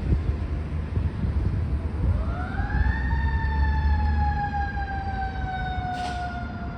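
Fire truck siren sweeping quickly up in pitch, then sliding slowly down, over the low rumble of the apparatus passing. A short hiss breaks in about six seconds in.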